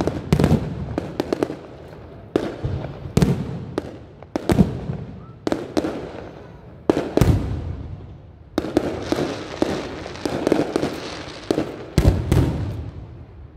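Aerial firework shells bursting one after another in a display: sharp bangs, many followed by crackling tails, with a dense run of crackle about two-thirds of the way through.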